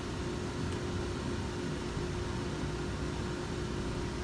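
Steady mechanical hum and hiss with a faint steady tone held throughout; no distinct tool strikes stand out.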